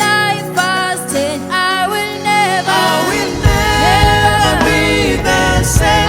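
Music with singing; a heavy bass part comes in about three and a half seconds in.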